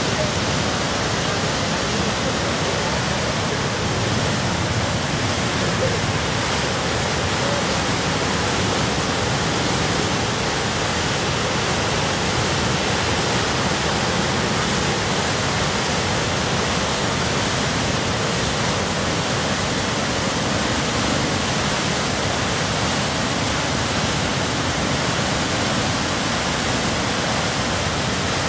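Loud, steady rushing of a muddy river in flood, the fast brown water surging in standing waves and carrying sediment.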